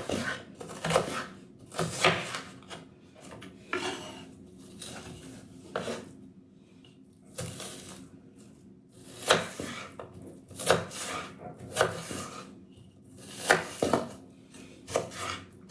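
Kitchen knife chopping an onion on a cutting board: irregular sharp strokes with a short pause about halfway through.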